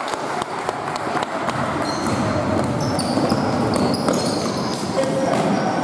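Basketball game in a gym: the ball bouncing on the court in a run of sharp knocks, with short high squeaks of sneakers around the middle and a murmur of voices in the hall.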